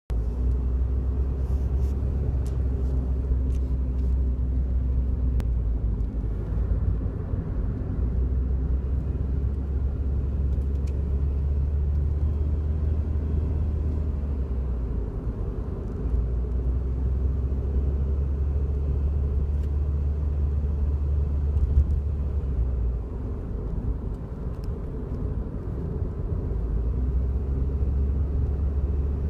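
Inside the cabin of a moving Daihatsu Wake: a steady low road and engine rumble, with faint, scattered buzzing rattles from under the steering wheel each time the car vibrates. The rattles are an abnormal noise, the sign of something below the steering column trembling.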